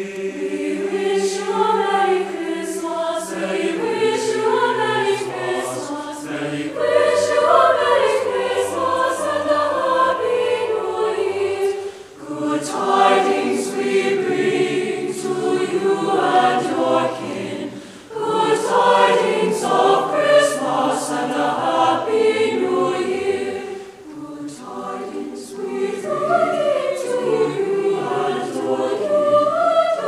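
Mixed high school choir singing in sustained phrases, with short breaks about every six seconds.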